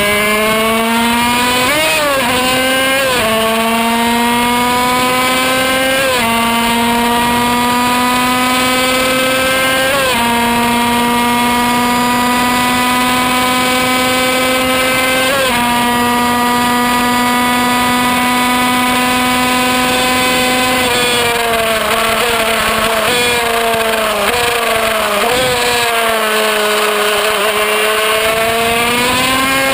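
Kreidler Van Veen 50cc single-cylinder two-stroke racing engine screaming at about 13,000–14,000 rpm. Its pitch climbs steadily, then drops slightly at each of several upshifts. About two-thirds of the way in it falls through a few quick downshifts into a corner, then rises again as it accelerates out near the end.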